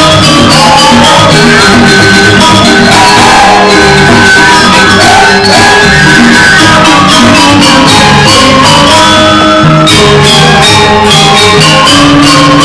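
Balinese joged bumbung gamelan music, played on bamboo instruments: pitched notes over a quick, steady beat.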